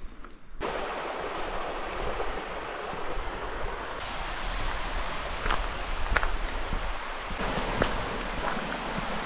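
Steady rushing of a running stream that comes in abruptly about half a second in, with a few sharp clicks and two faint high chirps over it.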